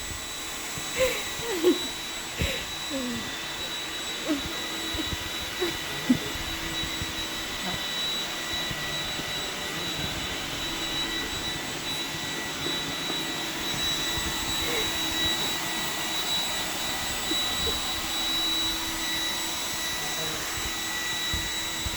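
iRobot Roomba 980 robot vacuum running steadily: a constant motor noise with a high whine. A few faint short vocal sounds and a couple of knocks come in the first six seconds.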